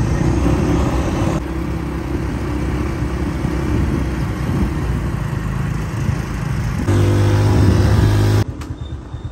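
Small motorcycle engine running steadily while riding, with wind rushing over the microphone. The engine note grows louder and steadier about seven seconds in, then drops off sharply near the end.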